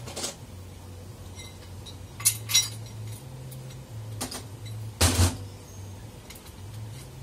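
Steel automatic-transmission parts, a clutch drum and clutch plates, clinking and knocking as they are handled and set down on a metal workbench. There are several separate clinks, with the loudest, a short double knock, about five seconds in.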